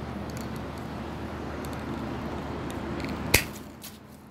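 Hand pruning shears snipping through a woody Arabian jasmine (mogra) stem: one sharp click about three seconds in, over steady low background noise.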